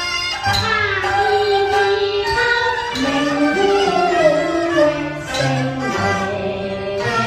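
Teochew opera ensemble music, a melody led by bowed Chinese fiddles with sliding notes over a steady low accompaniment.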